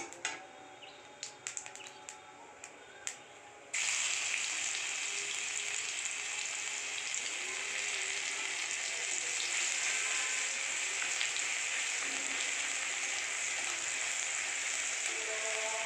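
A spatula scrapes and taps in a steel wok with a few sharp clicks. About four seconds in, a loud, steady sizzle starts as crushed garlic goes into hot mustard oil with cumin and cinnamon, and it carries on while it is stirred.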